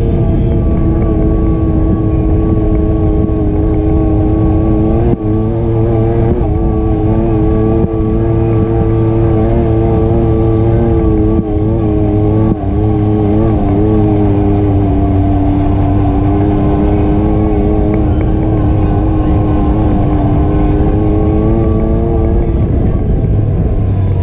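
ATV engine running at a steady cruising pitch with small wobbles, over a heavy low rumble. It eases off near the end.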